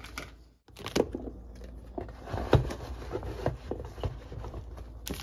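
Small knocks and scrapes of food containers being handled on a kitchen counter and packed into a soft lunch bag. The sound cuts out briefly about half a second in.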